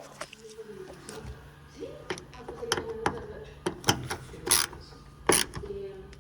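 Several sharp clicks and knocks of hand tools and metal parts during work on a van's door latch assembly, the loudest two knocks near the end.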